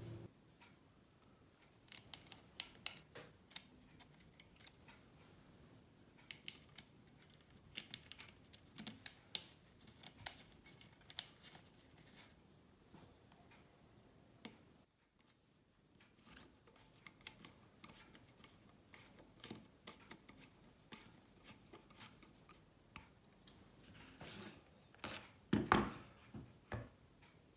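Faint clicks, taps and scratches from hands handling the angle grinder and its small parts while its carbon brushes are changed, with a louder knock and rattle near the end.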